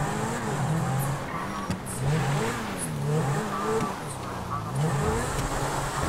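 Video-game supercar engine revving, its pitch rising and falling over and over, about once a second, as the car is driven down a hillside.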